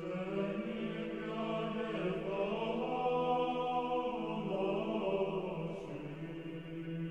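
Choral church chant: a low note held as a steady drone under a slow, smoothly moving sung melody.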